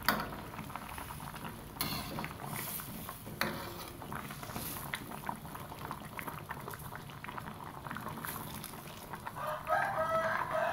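Coconut-milk fish curry simmering in a metal wok with a fine bubbling crackle, a metal spoon knocking against the pan a few times as it stirs. A chicken calls near the end.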